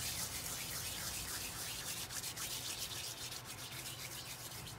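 Dried rosemary being crumbled between the fingers and sprinkled over pork ribs: a dry, crackly rustling that thins out near the end, over a faint low hum.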